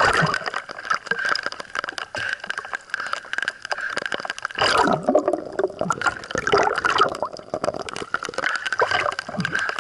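Water gurgling and bubbling, with a dense crackle of small clicks throughout and a couple of louder swirling gurgles in the middle.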